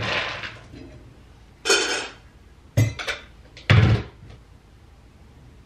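Dry dog food being scooped out of a plastic storage bin and poured into a dog bowl, heard as four short noisy bursts, the last the loudest.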